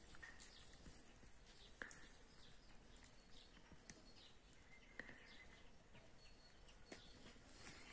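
Near silence: faint background hiss with a few faint, short bird chirps and a handful of soft clicks.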